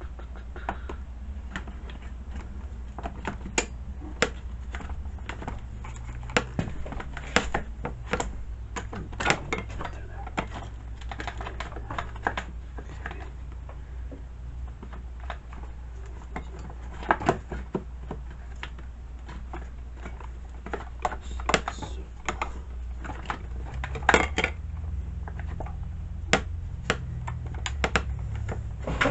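Irregular clicks and light knocks of hard plastic and metal parts as a chainsaw's top cover is fitted back on and handled, over a steady low hum.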